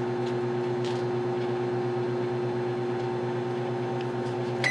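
Hamilton Beach microwave oven running on a 30-second heat: a steady, even hum.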